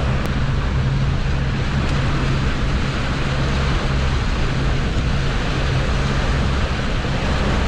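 Boat engine running steadily while trolling, a low drone with a constant rushing noise over it.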